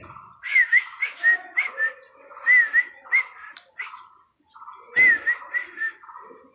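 Dog giving short, high, squeaky whimpers in quick clusters while it mouths at a stick, with one sharp knock about five seconds in.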